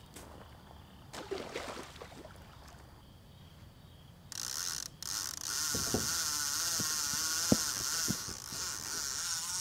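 Fishing reel ratcheting steadily, starting about four seconds in, with a few soft thumps in the middle.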